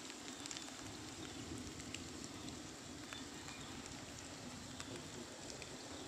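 Light rain falling on a wet paved street: a faint, steady hiss with scattered ticks of drops.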